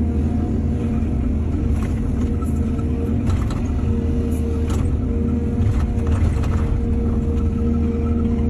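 Excavator's diesel engine running steadily, with a string of short knocks in the middle.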